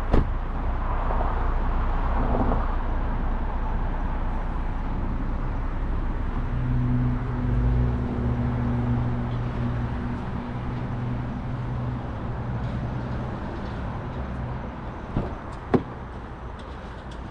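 Outdoor road noise: a vehicle's engine running steadily for several seconds midway over a low rumble, with a sharp knock near the end.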